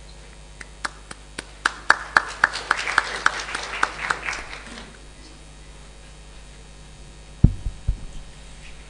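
Sparse audience applause: a few people clapping with separate sharp claps, thickening briefly and dying out after about five seconds. Two low thumps follow near the end.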